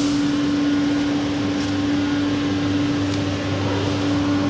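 Steady machine hum with one constant tone over a low rumble.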